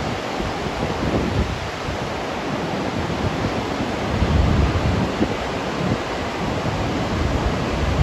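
Ocean surf washing in as a steady hiss of noise, with wind buffeting the microphone in low, uneven gusts that are strongest about four seconds in.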